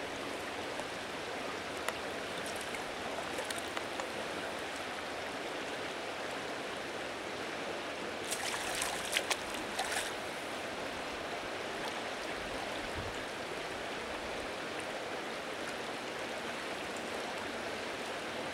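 Steady rushing of river current, with a short cluster of splashes about halfway through.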